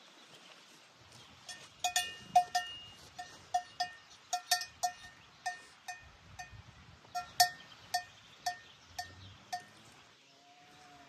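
Bells on grazing livestock clanking irregularly, one or two ringing strikes a second for about eight seconds, then stopping.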